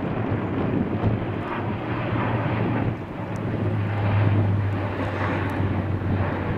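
Airbus A400M's four TP400 turboprop engines and eight-bladed propellers droning as it flies overhead: a steady low hum over a broad rush, swelling louder about four seconds in.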